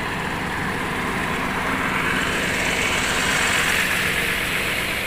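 Large intercity bus's diesel engine idling with a steady low hum, under a broad hiss that grows a little louder midway.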